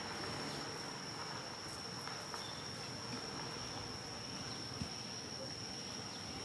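Steady high-pitched insect drone, one unbroken tone, with a few faint ticks.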